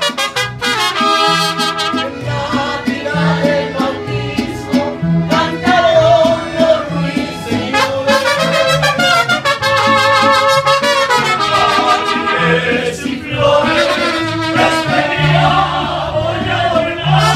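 Mariachi band playing, with trumpets carrying the melody over a bass line of separate low notes.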